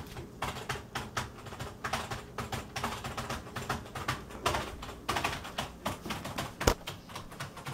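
Close handling noise: irregular soft clicks, taps and rustles of a rubber object and the camera being handled right at the microphone, with one sharper knock about two-thirds of the way through.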